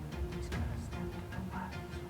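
Background music with strings.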